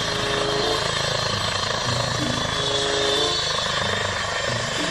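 Air-ambulance helicopter running on the ground with its main rotor turning: a steady high turbine whine over a rapid, even beat of the blades.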